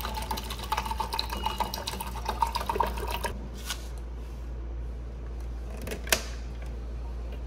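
Water dispenser pouring water into a paper cup over a steady low machine hum. The pouring stops about three seconds in, and a few light knocks follow as the paper cups are handled and lifted off the grate.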